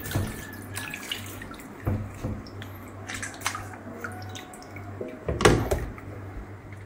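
Wet handling and dripping of water as raw frogs are moved about in a stainless-steel sink, with scattered small knocks and one louder wet knock about five and a half seconds in. A low steady hum runs underneath.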